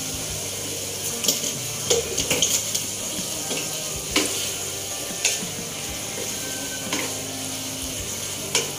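Pork and bitter melon simmering in sauce in a nonstick wok with a steady sizzle, while a spoon and then a wooden spatula stir it, clinking and scraping against the pan several times.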